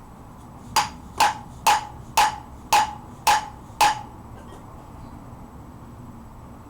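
Hammer tapping a metal part of a wrought iron vise being reassembled: seven sharp strikes, about two a second, each with a brief metallic ring.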